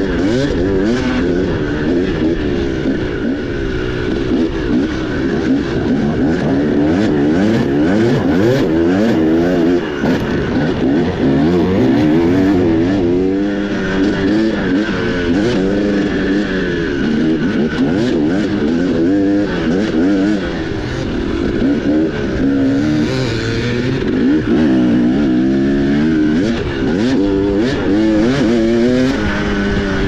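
Dirt bike engine running under way, its pitch rising and falling constantly as the throttle is opened and closed, with a few short knocks along the way.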